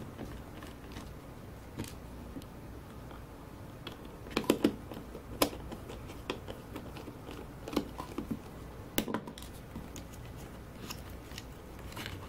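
Scattered clicks, taps and scrapes of hands working a circuit board loose from a power bank's plastic case. The sharpest clicks come in a cluster a few seconds in and again about two thirds of the way through.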